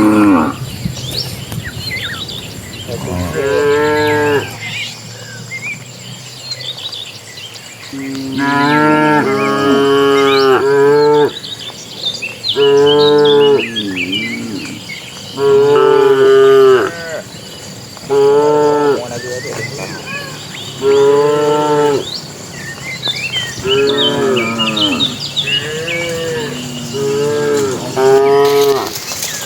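A herd of cattle mooing, one long moo after another, about a dozen calls in all, with some overlapping.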